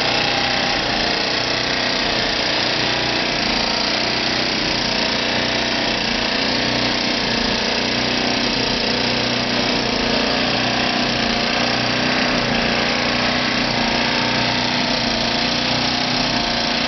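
Small 1,000-watt portable generator running steadily and evenly, powering the electric motor that drives a belt-driven pump jack on a well's hand pump.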